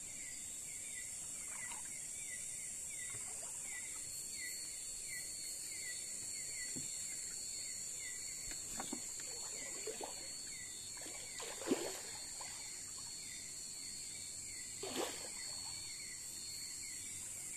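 Night insect chorus: a steady high-pitched drone with a short chirp repeating two or three times a second. A few soft water splashes from wading stand out, the loudest about twelve seconds in.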